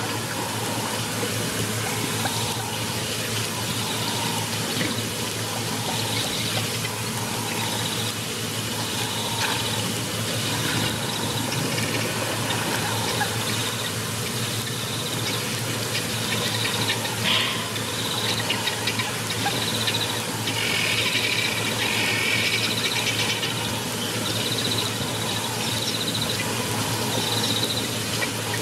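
Steady rush of water at a waterhole, with birds and insects chirping on and off over it, loudest about three quarters of the way through.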